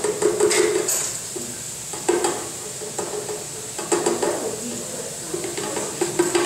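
Utensil scraping and knocking against the inside of a stainless steel stand-mixer bowl, in four separate bursts with a ringing metallic note, the longest near the end.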